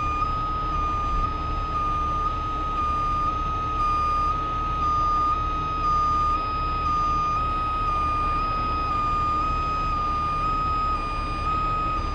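A continuous high-pitched electronic alarm tone on a 50-ton rotator tow truck, stepping slightly up and down in pitch about twice a second, over the steady low rumble of the truck's diesel engine running while it holds a suspended pickup.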